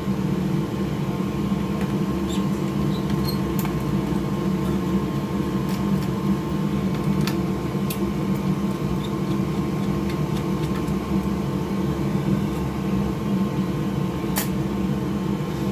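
A steady mechanical hum, like a fan or motor running, with a few light clicks scattered through and a sharper click near the end.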